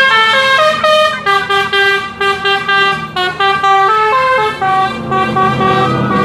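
Bus telolet horn of the Basuri type, a multi-tone horn playing a quick tune of steady notes one after another. A low hum joins underneath near the end.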